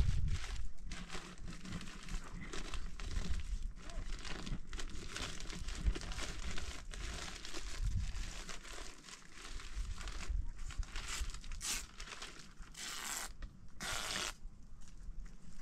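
Irregular crackling, crinkling and scraping handling noise with many small clicks. Near the end come two longer scraping strokes, then it goes quieter.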